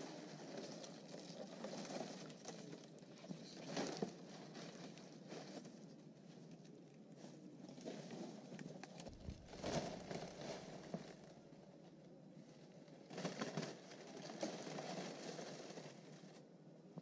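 Dry palm fronds and leaf litter rustling and crinkling in repeated bursts as they are handled, with the small crackles of a campfire underneath.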